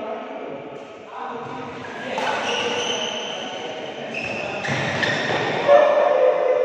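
Badminton doubles rally in an echoing hall: racket hits on the shuttlecock and shoes squeaking on the court, with players' voices. A sharp hit shortly before the end is the loudest sound.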